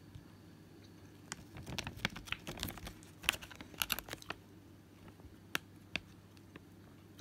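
A small paperboard candy box being handled and turned, giving a quick run of light clicks and crinkles for about three seconds, then two single taps.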